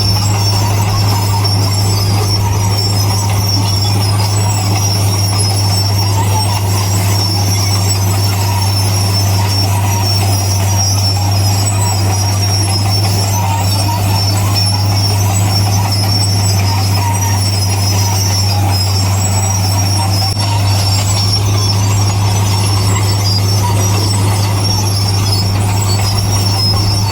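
Bulldozer's diesel engine running steadily with a deep, even hum, over a constant high metallic whine such as track or drivetrain squeal.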